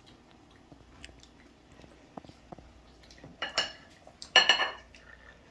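Cutlery and dishes clinking against a ceramic plate: a few faint taps, then two loud ringing clinks about three and a half and four and a half seconds in.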